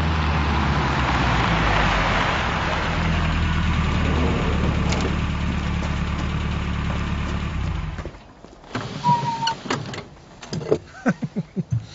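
Car engine running steadily with road noise for about eight seconds, then cutting off abruptly. A few short clicks and brief pitched sounds follow near the end.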